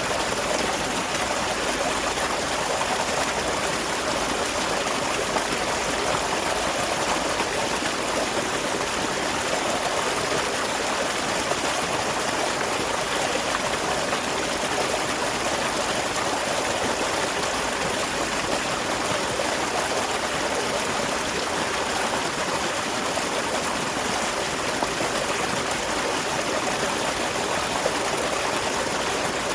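Small waterfall: water splashing and running in a steady, unbroken rush.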